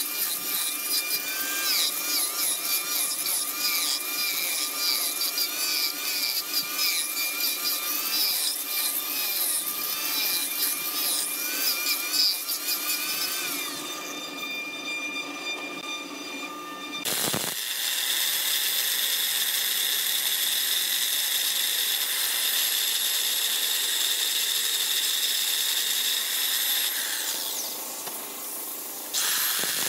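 Angle grinder running with its disc held against carved wood, a steady whine that wavers as the disc bites and scrapes; it eases off about 14 seconds in. After an abrupt change, another steady, high-pitched power-tool whine runs for about ten seconds and drops away near the end.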